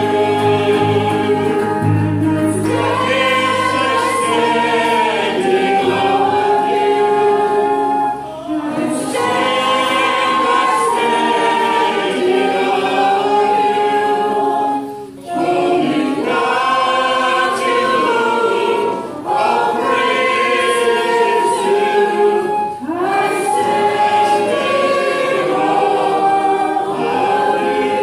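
Several voices singing a worship song together in phrases with short breaths between them. A low bass accompaniment drops away about three seconds in, leaving mostly the voices.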